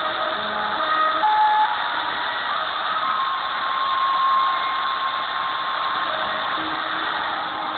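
Long-distance shortwave reception of KSDA Guam on 15540 kHz through a Degen DE1103 receiver: loud, steady static hiss, with the weak station audio showing only as faint held tones that change pitch now and then.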